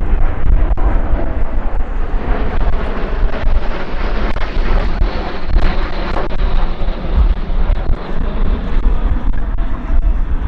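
Aero L-39 Albatros jet aircraft flying past: loud jet engine noise that builds and then fades, over a heavy low rumble. A faint high whine falls slightly in pitch as the noise ebbs.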